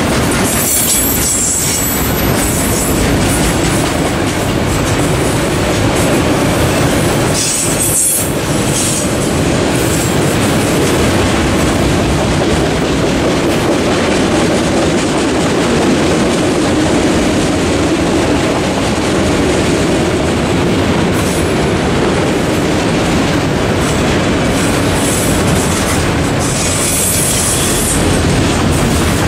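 Autorack freight cars of a CSX train rolling past over a level crossing, their wheels clattering steadily on the rails. High-pitched wheel squeal rises briefly about a second in, again around eight seconds, and near the end.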